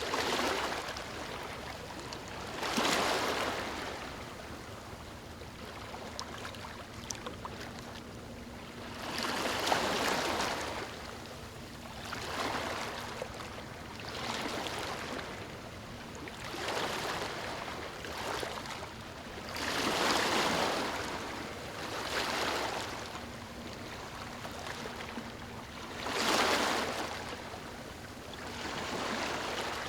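Small waves lapping on a beach: each wash swells up and sinks back, one every two to four seconds at an uneven pace.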